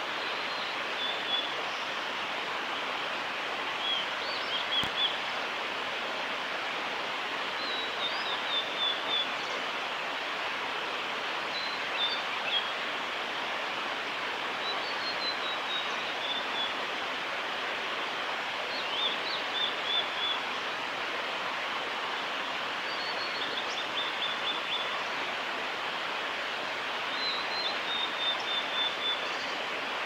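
Male blue-and-white flycatcher singing: about eight short, high, warbled phrases a few seconds apart, each ending in a quick run of repeated notes, over a steady rushing background noise.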